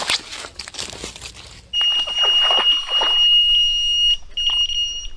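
Electronic carp bite alarm sounding one steady high tone, a run as a fish pulls line off the reel. The tone starts about two seconds in, breaks off briefly near the end and resumes, with rustling before it starts.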